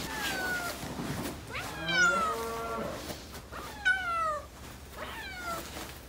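Stray cat meowing repeatedly, four meows that each fall in pitch, the second one longer and drawn out.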